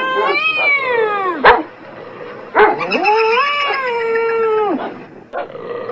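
Two long, drawn-out dog howls: the first falls in pitch, the second rises and is held for about two seconds before dropping away. A sharp click sounds between them.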